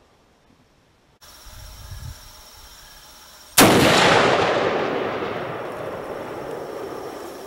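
A single rifle shot about three and a half seconds in, its report echoing and dying away slowly over several seconds, fired while sighting in the rifle.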